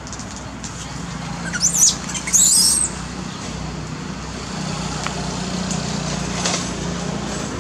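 Baby long-tailed macaque squealing twice in quick succession, high and wavering, about two seconds in, as a juvenile holds and pulls at it. A low steady hum runs underneath.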